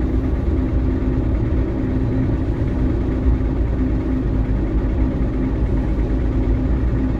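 Car engine running, heard from inside the cabin: a steady low rumble with a faint constant hum.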